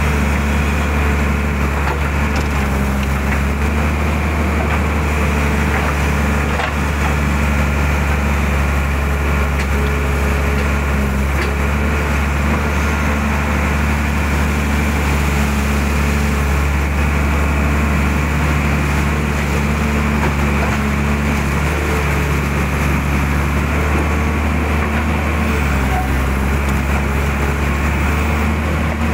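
Mitsubishi excavator's diesel engine running steadily at working revs while the hydraulics move the boom and bucket, with a small change in the engine's low note near the end.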